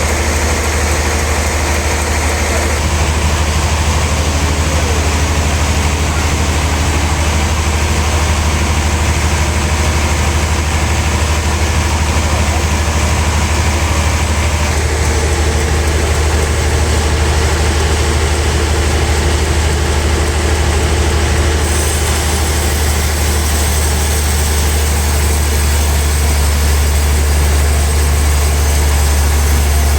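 Sawmill machinery running steadily with a loud, constant low hum and a hiss of higher noise over it.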